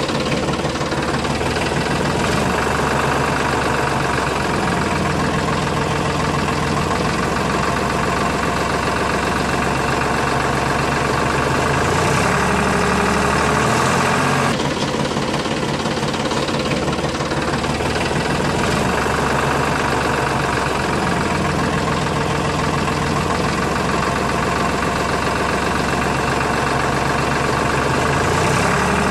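Tractor engine running steadily with a knocking beat, its note shifting briefly about twelve seconds in and again near the end.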